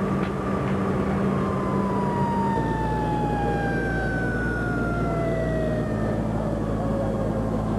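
An emergency-vehicle siren winding down, its pitch falling slowly throughout, over a steady rushing noise from the fire scene and a low hum.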